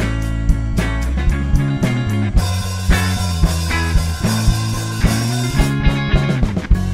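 Rock band playing, with drum kit hits over guitar and held bass notes; near the end the drumming stops and sustained chords ring on.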